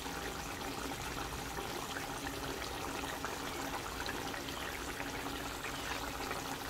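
Spiced chicken curry cooking in water in a pot on low heat, a steady hiss with fine crackling as the liquid heats toward a boil.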